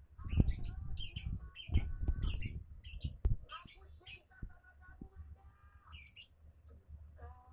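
Lovebird chattering in a rapid series of short, shrill, high-pitched chirps and squawks, with a few dull low bumps near the start and about two seconds in.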